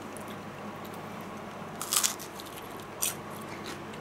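Crunching bites into the crispy coated skin of a piece of fried chicken. The loudest crunch comes about two seconds in and a smaller one a second later.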